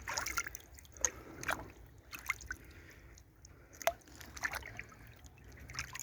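Shallow brook water splashing and dripping in a string of small, irregular splashes over a faint steady trickle.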